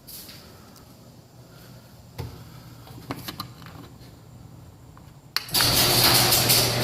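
A few faint clicks. About five seconds in, a sharp click, then a garage door opener's motor starts and runs loudly with a steady low hum as the door moves, on a test run after the safety sensors were realigned.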